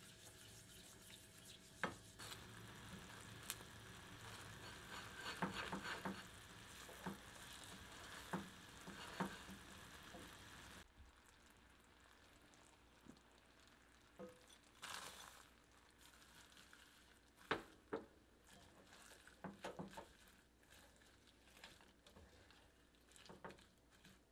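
Butter, sugar, honey and cream simmering into caramel in a saucepan, a faint steady hiss with a silicone spatula scraping and tapping the pan. About eleven seconds in the hiss cuts off abruptly, leaving quieter, scattered spatula scrapes and clicks as sliced almonds are stirred through the caramel near the end.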